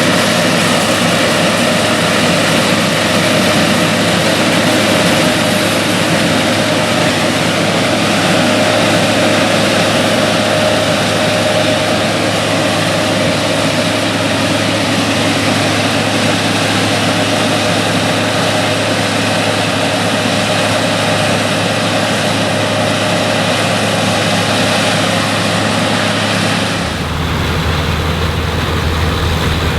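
Classic combine harvester running while harvesting corn: a steady drone of the engine and threshing machinery. About 27 seconds in, the sound changes abruptly to a lower, deeper running sound.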